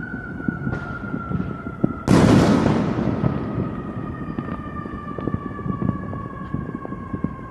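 A firework bang about two seconds in, its noise dying away over about a second, amid scattered pops and crackles. Behind it a steady high tone slowly falls in pitch.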